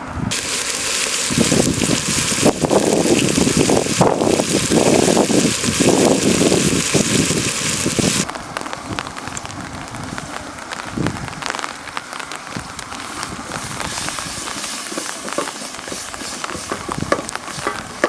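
Rain falling, heavy for the first eight seconds or so and then cutting abruptly to a lighter patter, with a campfire crackling.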